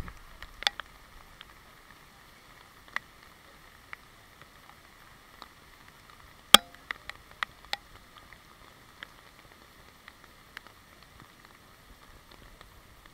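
Heavy rain falling on wet pavement as a steady hiss, heard muffled through an action camera's waterproof housing. Scattered sharp ticks of raindrops striking the housing, the loudest about six and a half seconds in.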